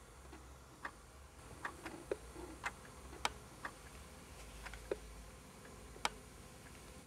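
Faint ticking of an analogue alarm clock: short, sharp clicks at an uneven pace of roughly one or two a second, over a low hum.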